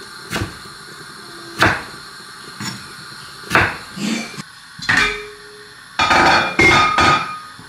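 A chef's knife chopping tomatoes on a wooden cutting board: sharp single chops about a second apart. Near the end come a couple of louder, clustered knocks with a brief ringing.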